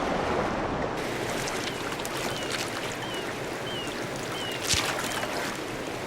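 Rushing water of a river waterfall, with a series of splashes, the loudest just under five seconds in. A bird gives short, falling high chirps about twice a second through the middle.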